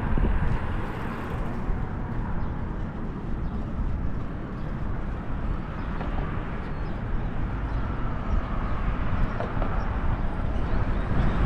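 Steady wind rush buffeting the microphone, with tyre rumble, from a bicycle riding along a trail.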